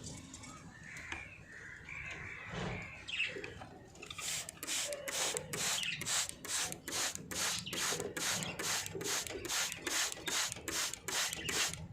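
Budgerigar soft warbling chatter, then from about four seconds in a rhythmic rasping scrape, about four strokes a second, that keeps going.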